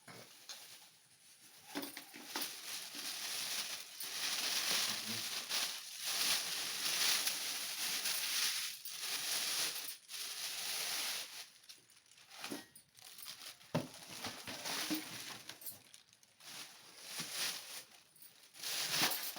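Packaging being handled during an unboxing: plastic wrapping and cardboard crinkling and rustling in uneven spells, busiest in the first half.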